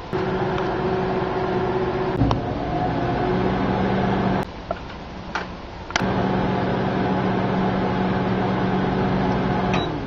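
Microwave oven running with a steady hum. It stops about four and a half seconds in, then starts again with a sharp click about a second and a half later, and runs until just before the end.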